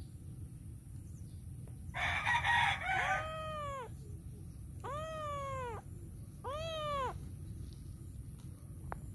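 A young kitten meowing three times, each meow a short call that rises and falls in pitch, spaced a second or two apart; the first starts with a harsh, raspy cry about two seconds in.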